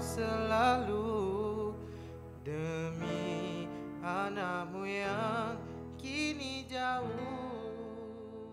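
A Malay Hari Raya song sung with long, wavering held notes over acoustic guitar and sustained chords, fading out near the end.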